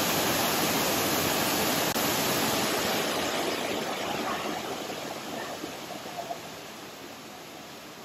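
Rushing water of a waterfall: a loud, steady hiss that cuts in suddenly and slowly fades over the last few seconds.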